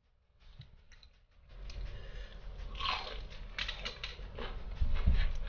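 Close-up crunching of crispy fried chicken coating being bitten and chewed: a dense run of crackling crunches that starts about a second and a half in and gets louder near the end.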